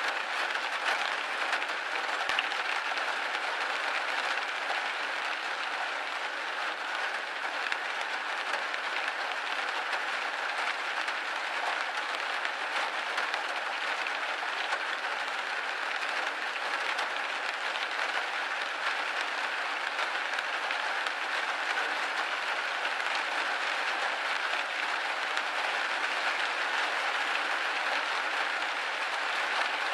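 Steady rain pattering on a window pane, a dense even spatter of drops.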